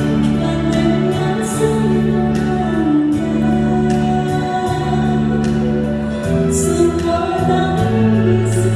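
A woman singing a Chinese song into a microphone over amplified instrumental accompaniment, with held low notes beneath the melody and the chord shifting a couple of times.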